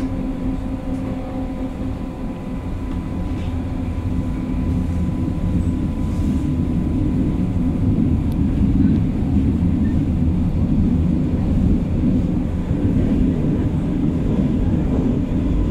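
Interior of a Berlin U-Bahn class H train running: steady low rumble of wheels on track and running gear, growing louder from about four seconds in.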